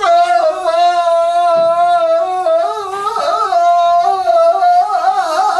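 A man's voice singing unaccompanied, holding long high notes with a slight waver about three seconds in.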